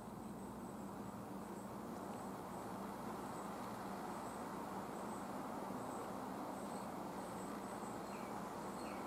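Steady outdoor background noise with a faint, high-pitched chirping repeated two or three times a second, and a couple of short higher calls near the end.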